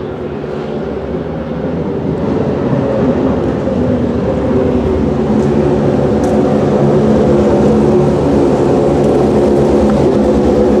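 Ferrari F430 GTC race car's 4.0-litre naturally aspirated V8 running steadily, with no sharp revs, growing a little louder over the first few seconds and then holding level.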